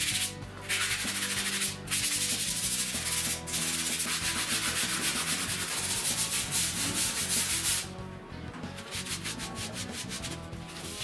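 Hand-sanding a laminate strip with a sanding sponge: long rasping strokes with brief pauses for most of the time, then from about two-thirds through, quicker and quieter short strokes at roughly five a second.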